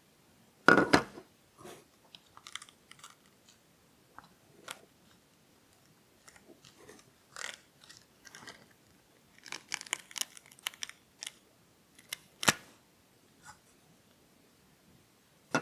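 Silicone rubber tire being forced out of a 3D-printed plastic tire mold by hand: scattered crackles, creaks and clicks as the tread peels out of the deep mold cavities and the mold parts come apart. There is a loud snap about a second in and another near the end.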